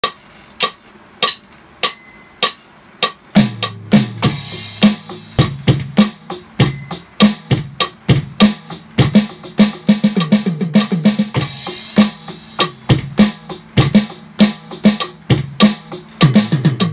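Electronic drum kit played with sticks and a kick pedal, sounding through its module: a few evenly spaced hits, then from about three and a half seconds in a steady groove of bass drum, drums and cymbals built on paradiddle sticking. Fast runs of tom hits break in around ten seconds and again near the end.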